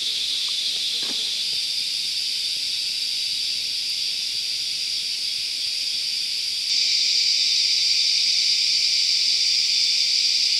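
Forest insects buzzing in a steady high-pitched chorus, growing louder and fuller about seven seconds in.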